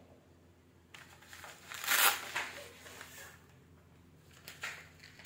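Rustling and crinkling as a fishing rod and its fabric rod bag are handled and moved, loudest about two seconds in, with a few light clicks near the end.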